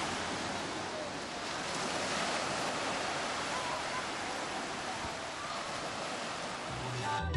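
North Sea surf washing onto a sandy beach: a steady rushing hiss of breaking waves.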